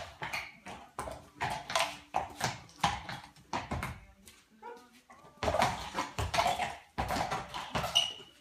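Horse's hooves knocking on a concrete stable floor in irregular steps as the horse is led in and turned around.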